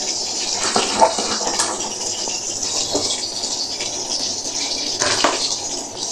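A pot of sinigang boiling hard in an aluminium pot on a stove burner: a steady bubbling hiss, with a few light knocks.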